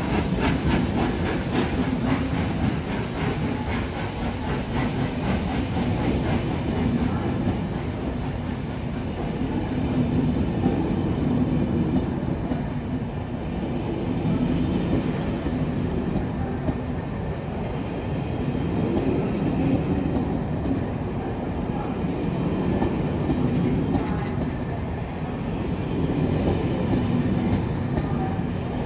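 Heritage passenger coaches rolling past at close range: wheels clicking over the rail joints and bogies rumbling. The rumble swells and eases every few seconds as each bogie goes by.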